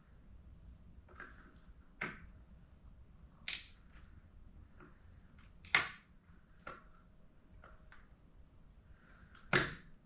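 Scattered sharp clicks and clacks of hand work, tools and parts being handled, with the loudest knocks about six and nine and a half seconds in.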